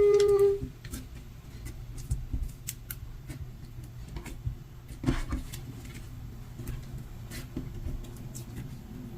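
A short meow, rising then held, ends just after the start. After it come soft, scattered clicks and crackles of butter slime being pressed and stretched by hand, over a low steady hum.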